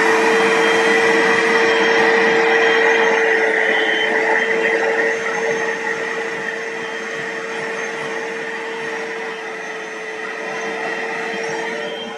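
Bissell Little Green portable carpet spot cleaner running, its suction motor giving a steady whine as the hand tool is worked over the carpet; it grows somewhat quieter in the second half.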